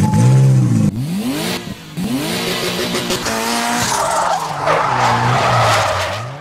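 Car engine revving up and down several times, then held at high revs under a long tyre screech as the wheel spins in a burnout, fading out near the end.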